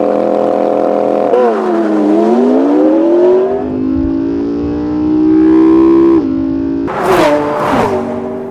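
A McLaren MP4-12C's twin-turbo V8 and a Lamborghini Aventador's V12 held at steady high revs on the line, then launching in a drag race. The engine note dips at the launch about a second in and climbs through the gears, with upshifts about 3.5 and 6 seconds in. Near the end come two loud rushes as the cars pass.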